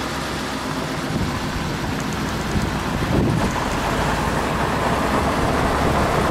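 A 1947 Ford Super Deluxe sedan running along an unpaved grade, with a steady low engine sound and road and wind noise heard from inside the car; the noise grows a little louder about halfway through.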